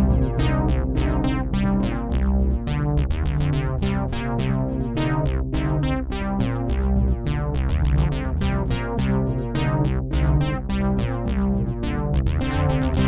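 Oberheim Matrix 1000 synthesizer playing a fast run of short, plucked-sounding notes through an Echolette E51 tape delay that has been repaired and loaded with VHS tape, the notes piling up into a dense, repeating pattern.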